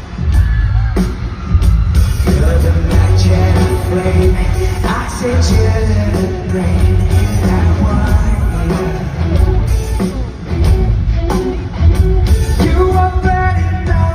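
Live pop-rock band with a lead singer played through a concert sound system at a sound check, with strong bass throughout.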